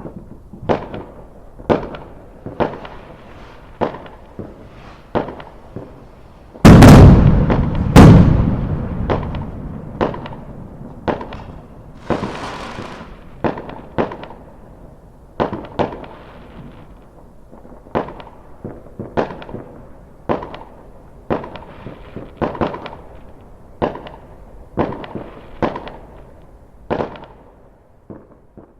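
Fireworks going off: a string of sharp bangs about once a second, with two much louder booms about seven and eight seconds in that fade away slowly. A hissing crackle comes in around twelve seconds in.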